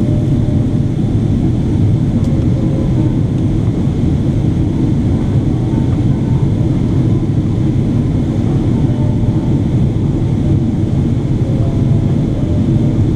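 Steady low roar of engine and airflow noise inside the cabin of a Boeing 777-300ER in flight.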